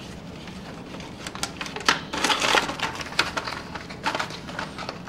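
Small cardboard boxes and an HO-scale model freight car being handled: a run of light clicks and taps, with a denser papery rustle a little after two seconds in.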